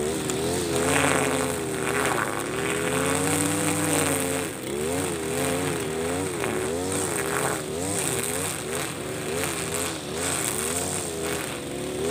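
Husqvarna 542RBS backpack brush cutter's 42 cc two-stroke engine running, its pitch rising and falling again and again as the throttle is worked, while the 2.4 mm square nylon line cuts tall grass.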